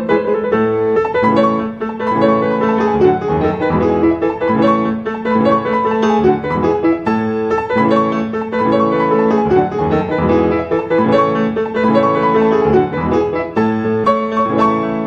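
Background piano music: a flowing run of notes over held lower notes.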